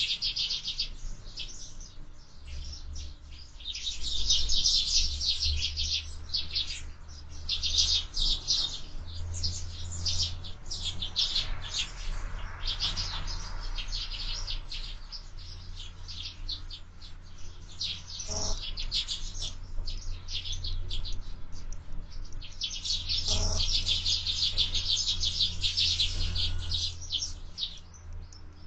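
A group of sparrows chirping busily and without pause at a window feeder, the chatter swelling in louder flurries, over a steady low rumble of wind. Two brief knocks, one past halfway and one later, rise above the chirping.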